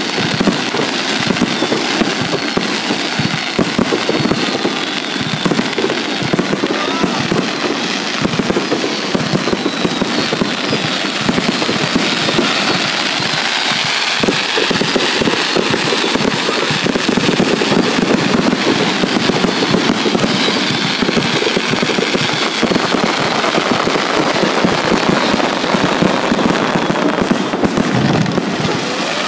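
Fireworks finale: a dense, unbroken barrage of aerial shell bursts and crackling, the bangs following one another too fast to count.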